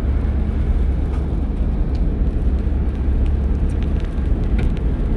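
Steady low road rumble inside a small car's cabin at about 60 km/h: Cooper Discovery all-terrain tyres on slushy, compacted snow, with the engine running underneath. A few faint clicks can be heard.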